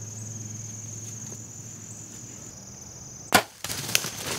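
A bow shot at a whitetail buck: one sharp crack about three seconds in as the arrow is loosed and strikes the deer, followed by the buck bolting off through dry leaves and brush.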